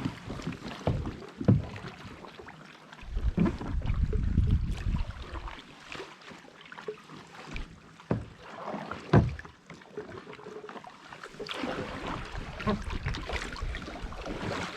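Kayak being paddled: water splashing and sloshing around the paddle and hull, with scattered knocks, the loudest about nine seconds in. A low rumble of wind on the microphone comes and goes.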